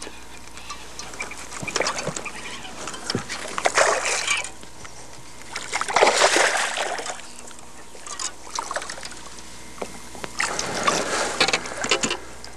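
A hooked largemouth bass thrashing and splashing at the water's surface as it is played to the boat, in several bursts, the loudest about six seconds in.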